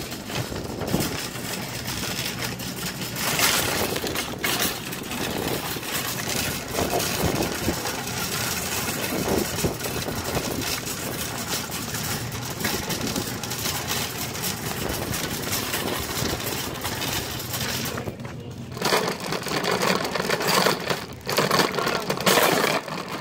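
Metal shopping cart rattling and clattering as it is pushed over asphalt, with a steady dense rattle that briefly drops away about eighteen seconds in.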